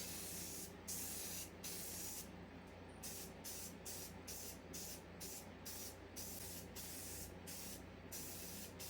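Paint being sprayed in short repeated bursts of hiss, a few slower passes at first and then about two bursts a second, over a steady low hum.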